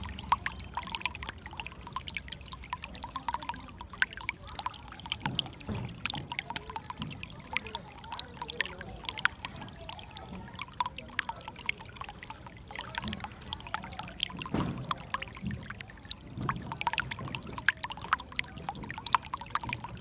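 Shallow water running over stones: a steady trickle with many quick little splashes and an occasional low gurgle.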